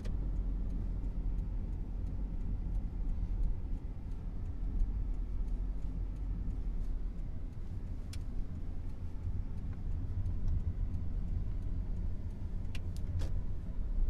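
Inside a moving car: steady low road and engine rumble. A few light clicks come through, one about eight seconds in and a quick cluster near the end.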